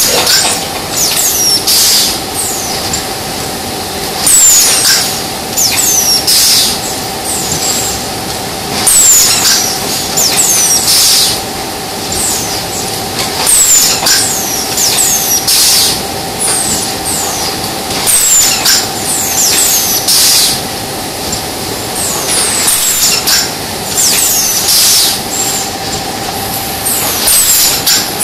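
Automatic jumbo bag cutting machine running: repeated bursts of pneumatic air hiss as the cutting head works, each with clusters of short high squeaks that fall in pitch, over a steady machine hum.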